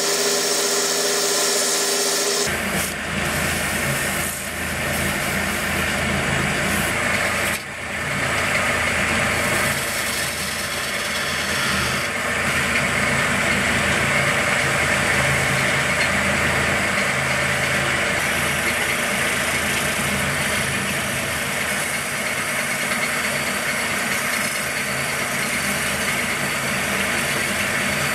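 Wood lathe running while a hand chisel cuts the spinning wooden blank: a steady scraping of steel on wood over the motor's hum. The sound changes abruptly about two and a half seconds in.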